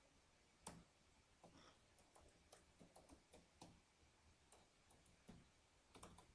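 Faint computer keyboard typing: irregular, scattered key clicks, with a cluster of quicker taps near the end.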